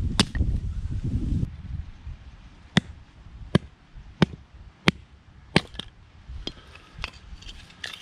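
A series of about ten sharp knocks or cracks, one every half second to a second at uneven gaps, after a low rumble in the first second and a half.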